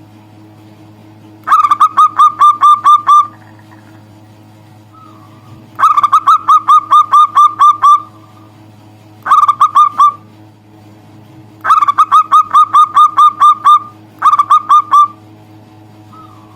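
Zebra dove (perkutut) calling: five bouts of quick, evenly repeated notes, each run lasting one to two seconds with short pauses between.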